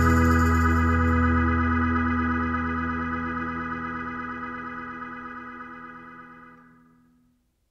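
Background music ending on one long held keyboard chord, organ-like, that fades out steadily to silence about seven seconds in.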